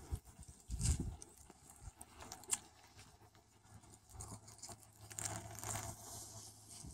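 Faint, scattered rustling and soft patter of puppies moving and sniffing through grass and dry plant stems, with a few light clicks.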